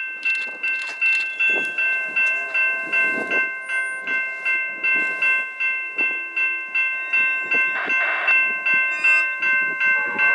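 Railway level-crossing warning bell ringing steadily at about three strokes a second, warning of an approaching passenger train.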